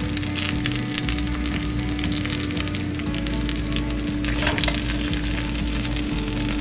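Hot oil sizzling and crackling in a cast iron skillet around floured chicken pieces fresh from the oven, over a steady low hum.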